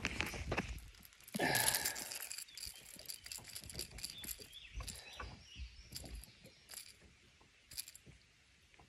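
Scattered clicks and light rattles of a hard-plastic jerkbait and its treble hooks as a small smallmouth bass is handled and unhooked by hand, with a louder scuffle about a second and a half in.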